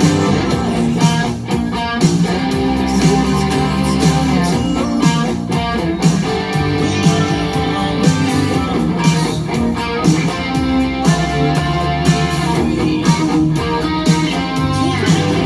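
Electric guitar, a striped Frankenstrat-style guitar with a single bridge humbucker, playing a continuous picked riff with a steady rhythm.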